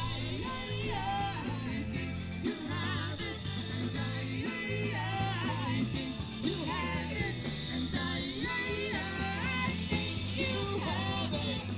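A live rock band playing, with a singer's voice over steady bass notes that change every second or so.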